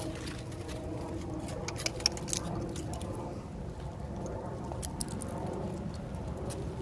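Footsteps and scuffs of a person walking leashed dogs on a concrete sidewalk, light pattering, with a few sharp clicks about two seconds in.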